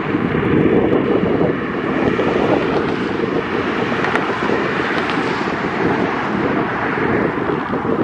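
Jet engines of an Airbus airliner during its landing flare and touchdown: a steady rushing noise with wind buffeting the microphone.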